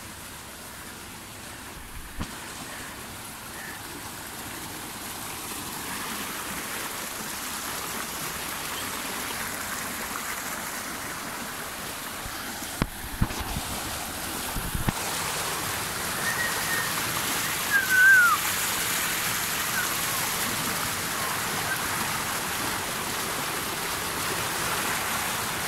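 Irrigation water gushing out of a concrete outlet and rushing along a channel: a steady, even rush that grows louder. A few knocks around the middle, and a short high chirp about two-thirds through.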